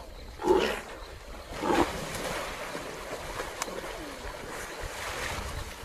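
River water splashing and churning as a leopard grapples a waterbuck, with two loud splashes about half a second and just under two seconds in.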